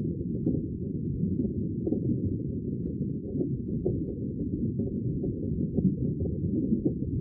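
Sea water as a steady, muffled low rumble, with no hiss or high splashing.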